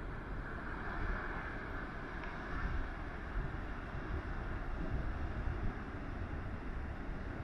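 Wind buffeting the microphone in a steady low rumble, over the continuous wash of heavy surf breaking on rocks below.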